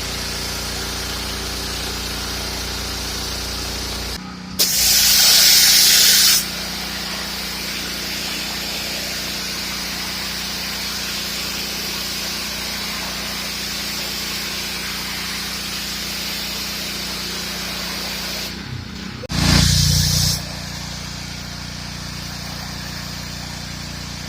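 Gas-engine pressure washer running steadily, with the hiss of its high-pressure water jet spraying throughout. Two louder bursts of spray come about four seconds in, lasting about two seconds, and near the end, lasting about a second.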